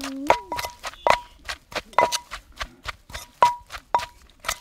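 Irregular sharp knocks of kitchen utensils against a cooking pot, a few each second, each ringing briefly at the same pitch.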